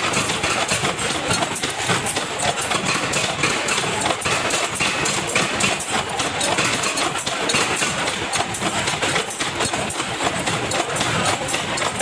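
Factory machinery running steadily, with a dense, continuous clatter of small metallic clicks.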